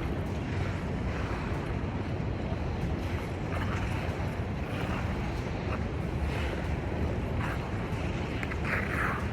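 Wind buffeting the microphone with a steady low rumble, over which short scraping hisses come about once a second, the loudest near the end.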